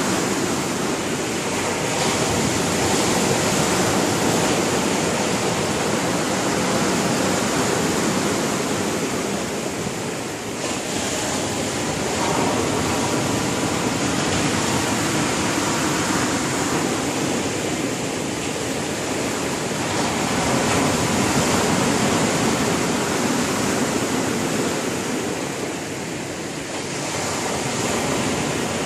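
Sea surf: waves breaking and washing on the shore in a continuous rush of noise that swells and eases about every eight seconds.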